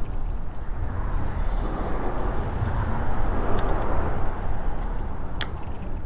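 Steady low outdoor rumble, with one sharp click about five seconds in.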